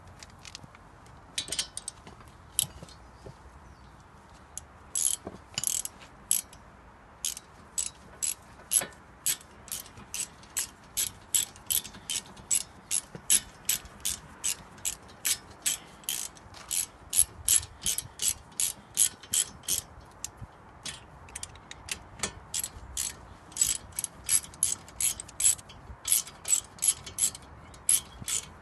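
Small hand ratchet clicking in quick back-and-forth strokes, about two clicks a second with a few short pauses, as a brake caliper bolt is wound in.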